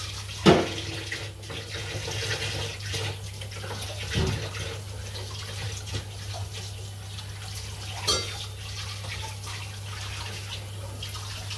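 Kitchen tap running into a sink while a knife and hands are washed under it, with a few knocks against the sink, the sharpest about half a second in.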